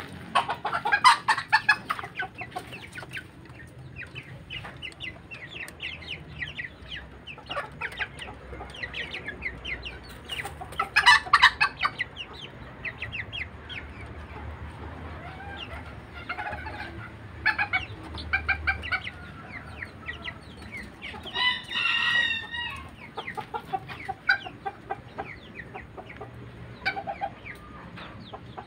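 Bantam chickens clucking again and again, with louder outbursts about a second in and about 11 seconds in. A rooster gives one short crow of about a second, some 21 seconds in.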